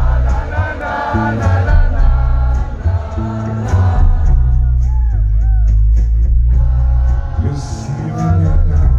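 Live rock band playing loud, with a man singing over heavy bass, electric guitar and keyboards, heard from among the audience.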